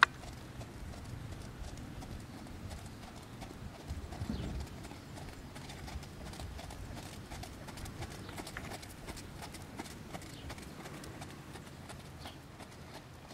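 Hoofbeats of a Trakehner gelding trotting on gravel arena footing, a steady run of light clip-clops. A single sharp click right at the start.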